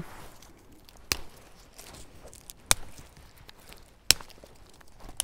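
Dry sticks snapped by hand into kindling for a small wood-burning stove: four sharp cracks, roughly a second and a half apart.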